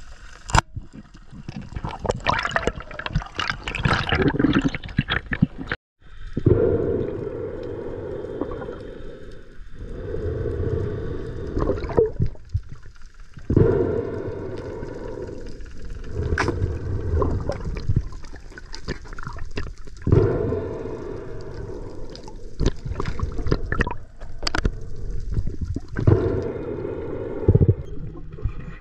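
Water noise: splashing and sloshing for the first few seconds, then, after a brief cut, muffled underwater rushing with no highs, swelling and fading in surges every few seconds.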